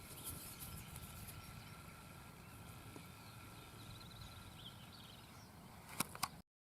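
Faint outdoor field ambience with a low rumble, a few faint bird chirps past the middle, and a couple of sharp clicks near the end, after which the sound cuts off to silence.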